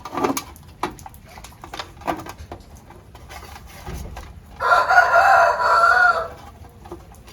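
A rooster crows once, a single long call of about a second and a half starting a little past halfway through. Before it come scattered short clicks and knocks.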